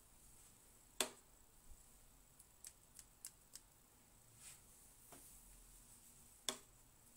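Near silence broken by short sharp clicks and light taps of a watercolour brush being worked at a metal paint palette. The two loudest clicks come about a second in and near the end, with fainter ticks between them.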